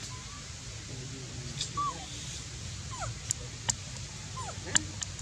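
Baby macaque giving short, high squeaky whimpers that fall in pitch, about four spread over a few seconds, with a few sharp clicks in between.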